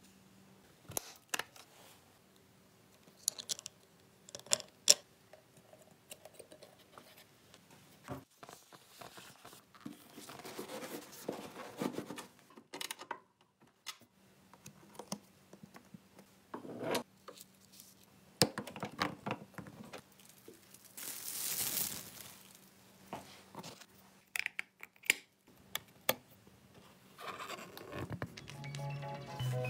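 Small parts of a model car being handled and fitted by hand: scattered light clicks, taps and scrapes of small pieces and screws, with a longer hiss about two-thirds through. Mallet-percussion music comes in near the end.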